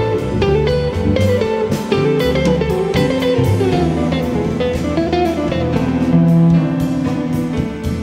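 Instrumental jazz: a guitar plays a quick line of plucked notes over lower accompanying notes.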